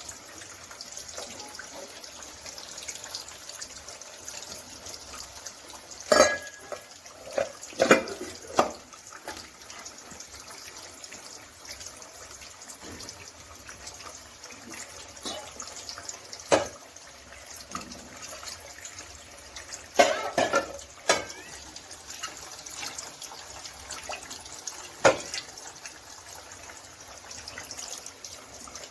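Steady hiss of running water in a kitchen, broken about seven times by sharp clatters of pots or utensils.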